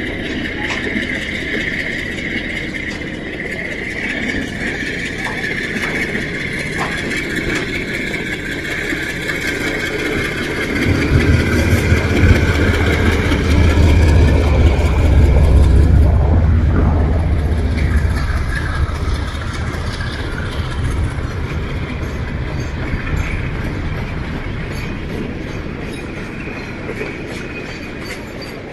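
Diesel locomotive hauling a freight train passing close below, its engine rumble swelling to a peak about halfway through and slowly fading as the wagons roll by. A steady high whine sounds over the first third.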